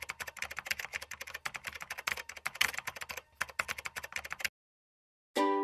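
Rapid computer-keyboard typing clicks, used as a sound effect, stop abruptly about four and a half seconds in. After a short silence, plucked-string music starts right at the end.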